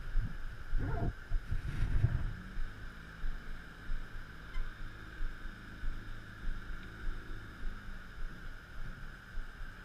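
Boat's outboard motor running steadily at low speed, a low even hum that settles in after about two seconds of low thumps and rumble.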